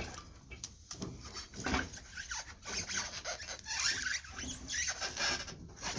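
Irregular scraping and rubbing with a few squeaks as the binding hub-motor wheel is worked back into the moped's frame.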